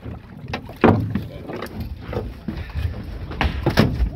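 Knocks, thumps and splashing as a large gaffed halibut is hauled out of the water and over the side into the boat, the loudest thump about a second in, over a low wind rumble on the microphone.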